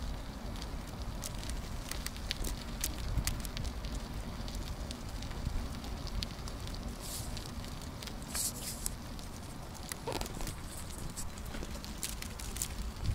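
Bicycle riding along with a steady rolling noise, many scattered clicks and crackles from the tyres and the wire-domed basket, and a low wind rumble on the microphone.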